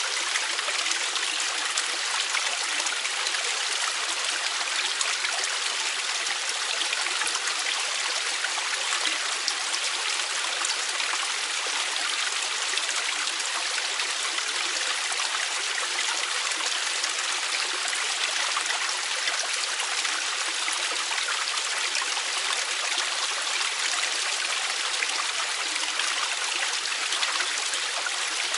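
Valley stream flowing: a steady, unbroken rush of running water with no pauses or changes.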